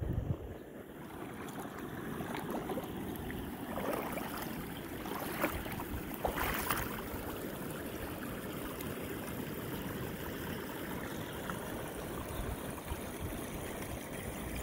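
Shallow stream water running steadily over rocks, with a few splashes of feet wading through it around the middle.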